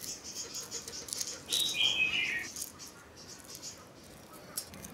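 Fine, crisp crackling and clicking of boiled quail eggshells being cracked and peeled off by hand. About one and a half seconds in there is a brief chirp that falls in pitch.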